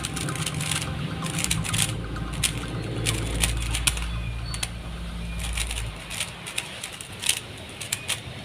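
RS3M 2020 3x3 speed cube being turned quickly: a rapid, irregular clatter of plastic clicks. A low rumble runs underneath and fades about six seconds in.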